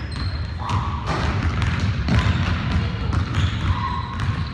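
A basketball bouncing on a hardwood gym floor as players dribble and run, with irregular sharp thuds echoing in the large hall.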